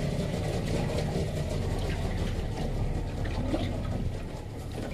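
Small boat's outboard motor running steadily underway, with water washing along the hull.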